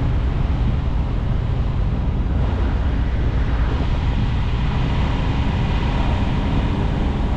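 Diesel engine idling steadily, a continuous low rumble.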